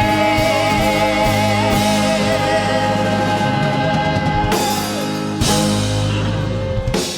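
Live band with a female singer holding the song's final chord, the voice sustaining one long wavering note over steady bass and keys. Two drum-and-cymbal hits about four and a half and five and a half seconds in accent the ending, and the music cuts off near the end.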